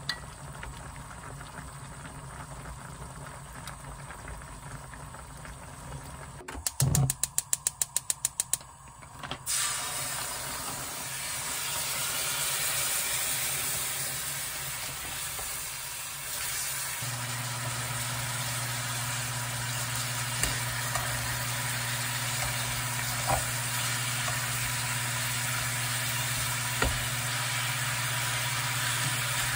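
Seaweed soup bubbling in a pot, then a rapid run of about a dozen clicks, then marinated LA galbi (beef short ribs) sizzling as it fries in its sauce in a frying pan. Light clinks of tongs and kitchen scissors against the pan come now and then, and a steady low hum joins about halfway through.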